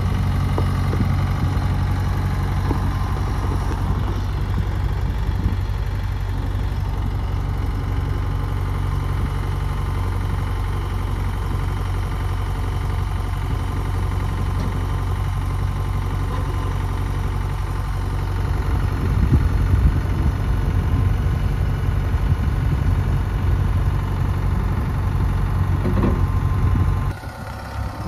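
Mahindra 2538 compact tractor's three-cylinder diesel engine running steadily as the tractor is driven. The sound grows louder and rougher about two-thirds of the way through, then dips briefly near the end.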